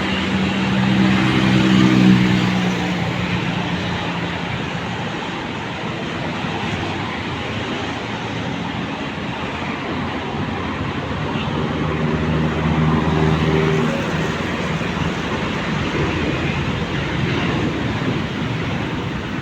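Steady road traffic with vehicles passing. An engine's low drone swells and fades about two seconds in, and another passes at around thirteen seconds.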